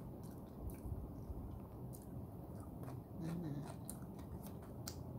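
A person chewing a mouthful of chicken biryani close to the microphone, with scattered sharp clicks and a brief hummed "mm" about three seconds in.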